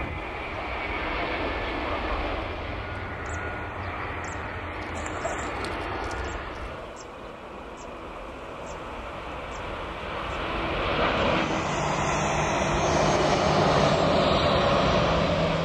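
Jet airliners' engines at takeoff power, in a run of takeoffs cut together: a Boeing 767 on its takeoff roll, then rear-engined MD-80-type jets climbing out and accelerating down the runway. The engine noise eases about halfway through, then grows louder over the last few seconds.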